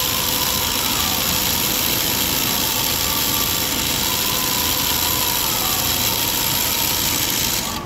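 Industrial single-needle sewing machine running at a steady speed as it stitches along a length of fabric, a continuous even motor hum and needle drive. The sound cuts off sharply just before the end.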